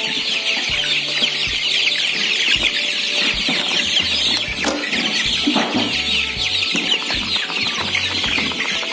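A flock of four-week-old kampung super chickens peeping continuously in a dense chorus of short, high, downward-sliding cheeps as they crowd the feed. A few knocks come about halfway through.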